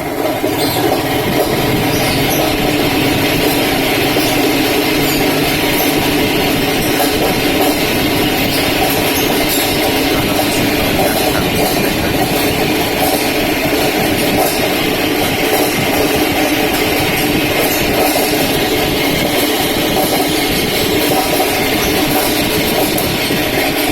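Electric spinner machine (centrifugal drainer) running steadily at speed with its basket loaded with product, spinning the liquid off it; a loud, even mechanical hum.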